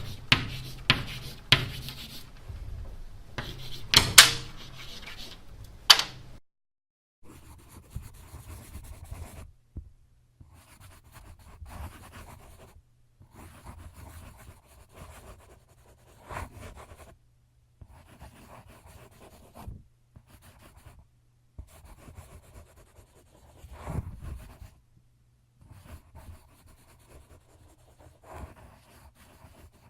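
Handwriting on paper: scratchy strokes with a few sharp taps in the first six seconds, then quieter bursts of writing strokes with short pauses between them.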